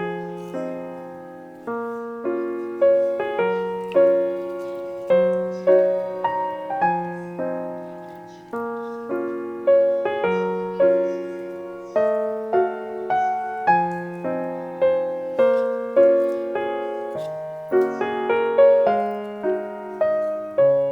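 Background music: a gentle piano piece with a steady rhythm of struck chords over a bass line.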